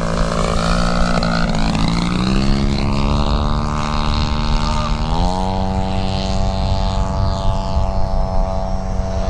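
Two-stroke 100cc twin-cylinder gasoline engine (DLE 100) of a large RC Super Decathlon model plane running at speed in flight. Its note drops about 2 seconds in and rises again about 5 seconds in.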